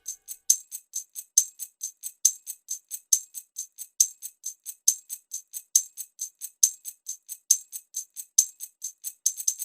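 Korg PA700 arranger keyboard's rhythm section playing a high, shaker-like percussion pattern on its own: steady quick ticks with a louder accent a little under once a second.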